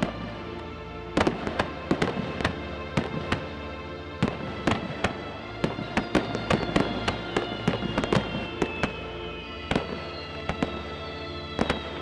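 Fireworks going off: a run of sharp, irregular bangs and pops, with a few long whistles gliding slowly down in pitch, over steady background music.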